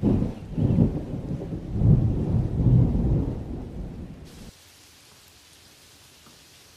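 Thunder rumbling in several heavy rolls, cutting off suddenly about four and a half seconds in. A faint, steady hiss of falling rain starts just before the cut and carries on.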